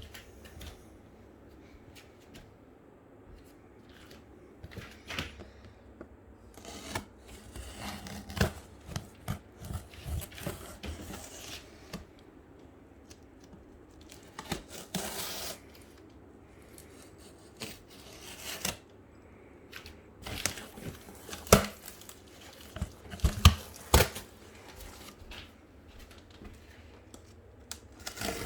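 Shipping packaging opened by hand: irregular tearing and rustling of paper or plastic, with scattered sharp clicks and knocks, the loudest a few knocks past the middle.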